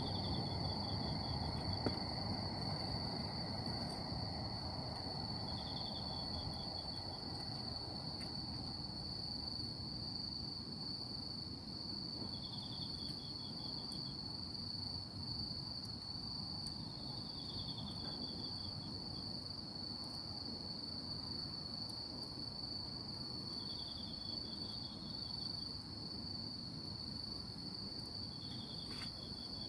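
Night insects calling: one keeps up a continuous high, steady trill while another gives a short, rapidly pulsed chirp about every five to six seconds, over a low steady hiss.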